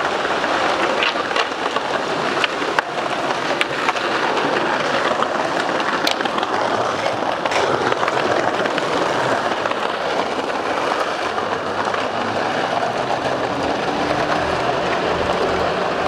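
Skateboard wheels rolling over concrete paving slabs, a steady rolling noise with occasional clicks as the wheels cross the joints.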